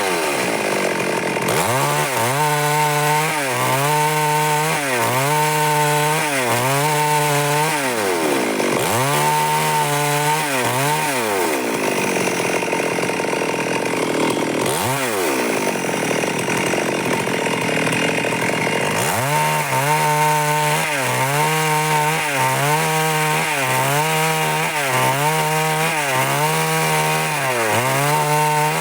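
Stihl MS 382 two-stroke chainsaw running at high revs while cutting wood, its pitch dipping briefly about once a second as the chain loads in the cut. For several seconds near the middle the engine runs lower and less steadily.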